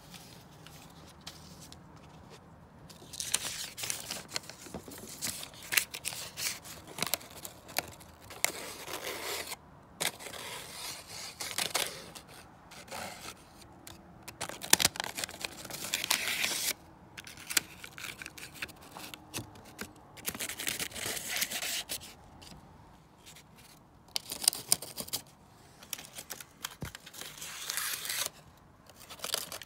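A piece of paper is scraped and rubbed along the joint between a new maple pinblock and the cast-iron plate of a grand piano, in repeated spells of rustling with short pauses. The paper will not slip into the joint, which is the sign that the block sits in solid contact with the plate.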